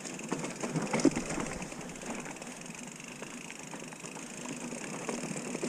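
Mountain bike rolling along a dirt trail: steady tyre noise with scattered small clicks and rattles from the bike, more of them near the end.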